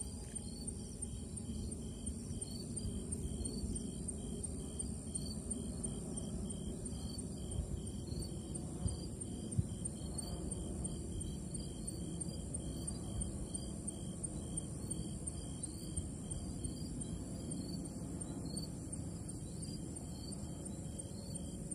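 Night insects, crickets or katydids, calling: a steady high trill with a repeating chirp a few times a second, over a steady low rumble.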